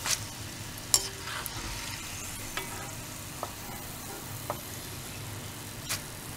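Chana dal deep-frying in oil in an iron kadai: a steady sizzle of bubbling oil, with a few clicks of a steel slotted spoon against the pan. The bubbling is settling down, which is the sign that the dal has lost its moisture and is ready to lift out.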